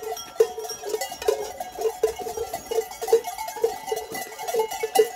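Large bells worn by Glöckler runners ringing and clanging together, about two to three strokes a second, in time with the runners' strides. Several bells sound at once.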